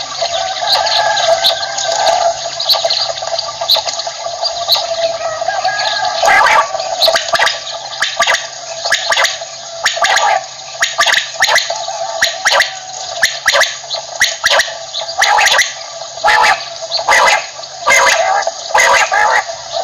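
Common quail calling: a dense, continuous run of overlapping short chirps and clicks.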